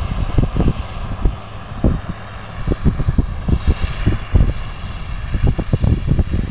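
Versatile 9482 tractor's 310 horsepower Cummins diesel running steadily under heavy load, pulling a disk chisel, with irregular low thumps throughout. A faint higher whine joins about halfway through.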